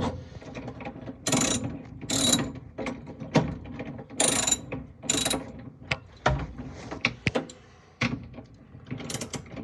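9/16-inch ratchet wrench clicking in several short bursts as it tightens the nut that holds a cam on an electronic cabinet lock.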